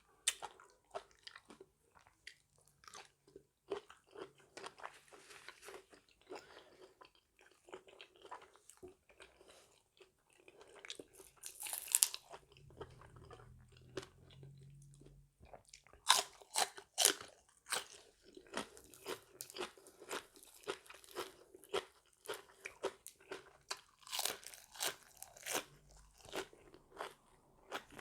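A person chewing and crunching food close to the microphone: irregular wet mouth clicks and crunches, with louder crunchy bites about halfway through and again in the second half.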